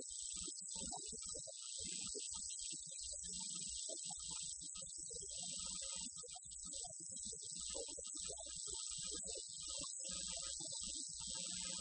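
A man's voice, faint and muffled, under a steady high-pitched whine.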